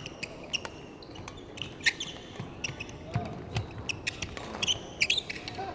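Badminton doubles rally: repeated sharp cracks of rackets striking the shuttlecock and brief high squeaks of court shoes on the wooden floor, in a large echoing sports hall.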